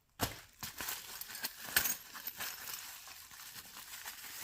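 Handling noise while unpacking: packaging rustling, with small clicks and clinks of metal padlocks being moved and set down, and a sharper knock at the end.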